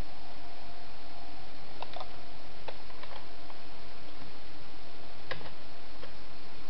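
Computer keyboard keys clicking a few times at irregular intervals over a steady hiss.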